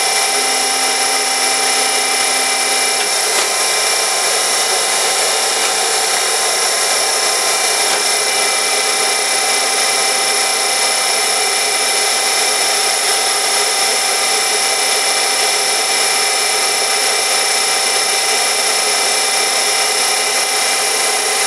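Heald 271 Gage-Matic internal grinder running: its 17,500 rpm grinding spindle gives a steady high-pitched whine made of several held tones, together with the hum of the hydraulics and workhead drive.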